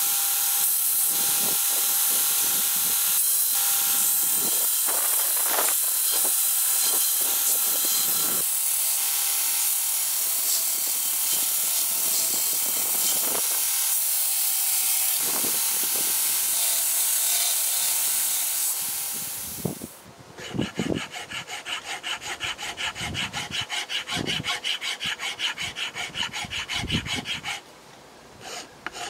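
Belt grinder running with its abrasive belt sanding a knife's stabilized oak handle, a steady loud hiss. It stops about twenty seconds in, and a hand file then rasps over the handle in rapid, even back-and-forth strokes, with a brief pause near the end.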